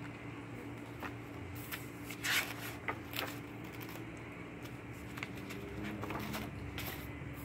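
Paper rustling and crackling in short bursts as sketchbook pages are handled and turned, the loudest a little over two seconds in, over a steady low hum.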